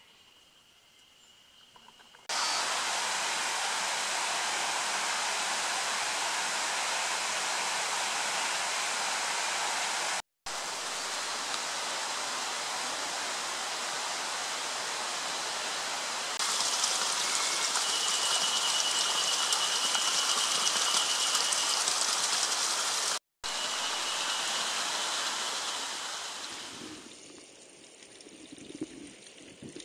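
Steady rush of flowing water, broken by two split-second dropouts; a thin high steady whine sounds over it for a few seconds in the middle, and the rush fades near the end.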